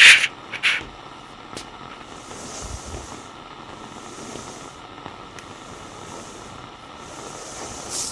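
Walkie-talkie static: a steady hiss broken by two sharp crackles in the first second, with the high part of the hiss swelling and fading a few times.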